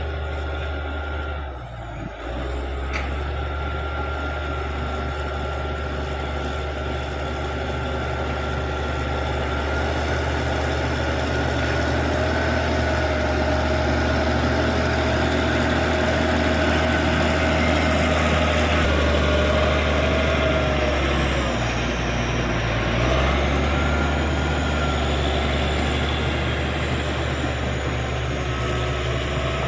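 Caterpillar D6G bulldozer's diesel engine running steadily under load, with a high whine that rises and falls in pitch as the machine works. The sound briefly drops about two seconds in.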